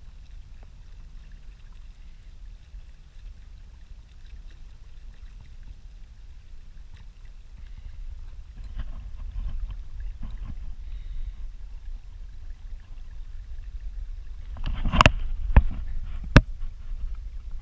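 Kayak moving on calm water: a low steady rumble of water and wind against the hull and the mounted camera. Three sharp knocks come near the end, the loudest sounds.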